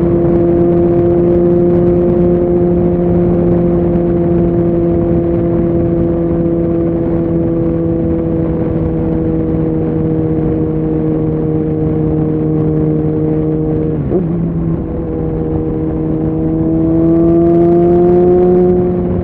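Suzuki Bandit 650's inline-four engine running under way, its note holding steady and slowly easing off, with a short break about two-thirds through like a gear change, then rising and getting louder as the bike accelerates toward the end.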